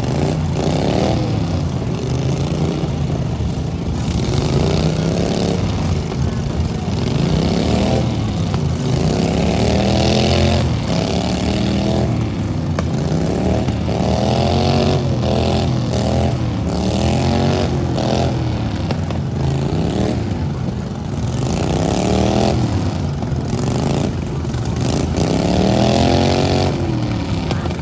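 Ride-on lawn mower engines in a derby revving up and down again and again, their pitch sweeping up and falling back every second or two, with several engines overlapping.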